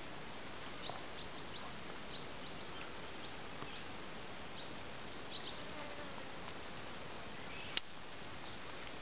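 Open-air summer ambience by a pond: a steady even hiss with scattered short, high bird chirps. One sharp click stands out near the end.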